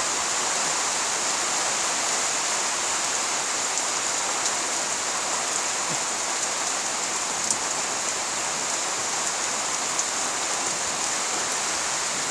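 Steady rain falling: an even hiss with a few sharper drop ticks now and then.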